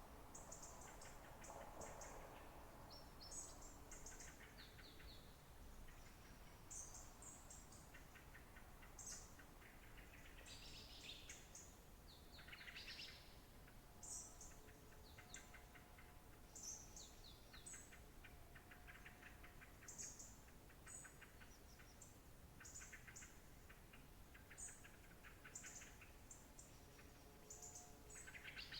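Several songbirds singing and calling faintly: short high chirps and quick trilled phrases of rapidly repeated notes, overlapping one another, over a soft background hiss.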